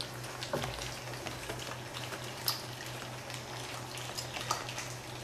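Several young puppies lapping and smacking at soft mush in a shared bowl, a steady scatter of small wet clicks and slurps, over a steady low hum.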